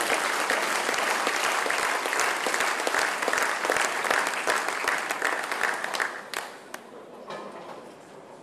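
Crowd applauding a strike in ten-pin bowling: dense clapping that dies away about six seconds in, leaving only a few scattered claps.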